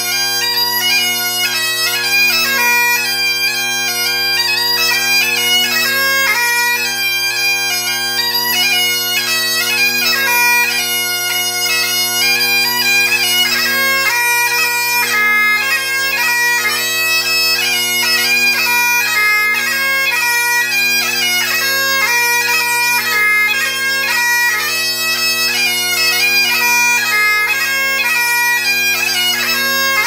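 Great Highland bagpipe playing a tune: a fast-moving chanter melody over its steady drones.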